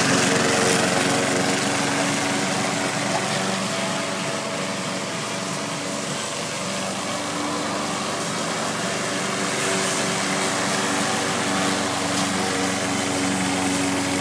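Gasoline lawn mower engine running steadily at a constant throttle, close by.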